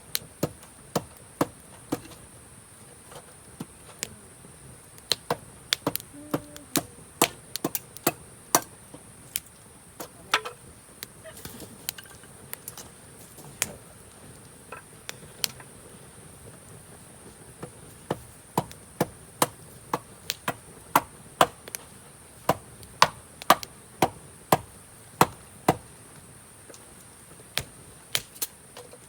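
Japanese cedar wood crackling in a campfire: sharp, irregular pops and snaps, thicker toward the end. Under them runs a steady high-pitched insect chorus of a summer night.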